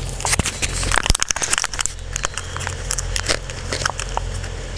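Crackling and rustling of fig saplings being handled in a plastic seedling tray, leaves and plastic crinkling under the hands, densest in the first half and sparser later. A steady low hum runs underneath.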